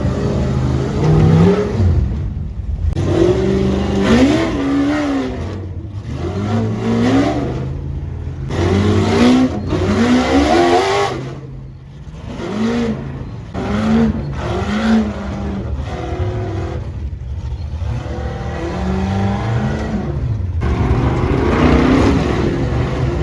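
Ultra4 rock-racing buggy engines revving up and down in repeated bursts, the pitch climbing and falling every second or two, with the sound cutting off abruptly several times.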